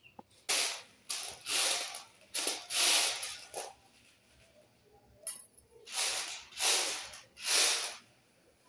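Dried chickpeas swept and stirred by hand across a metal tray while being sorted before cooking: repeated short rattling swishes, each about half a second, with a lull around four to five seconds in.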